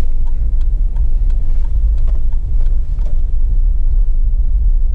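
Car interior road noise while driving slowly: a steady low rumble of engine and tyres heard from inside the cabin, with a few faint ticks.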